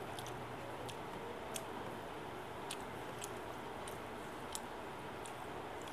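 A person chewing a mouthful of rice and fish curry, with a few sharp mouth clicks spread irregularly through it over a steady background hiss.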